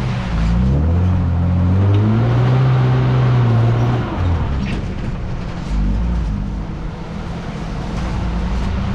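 Toyota 80 series LandCruiser engine driving along a rough, little-used dirt 4WD track. The revs rise about a second in, hold, ease off about four seconds in, then settle to a lower, steady drone.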